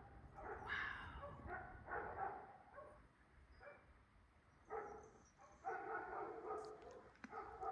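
A dog whining and yelping in several short pitched bouts.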